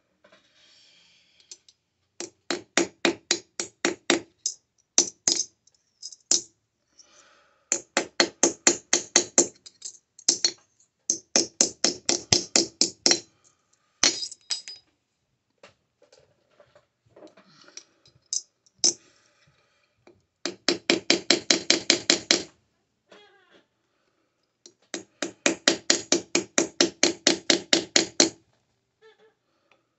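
Sterling silver square being hand forged with a hammer: quick runs of ringing metal strikes, about five to seven a second, broken by short pauses.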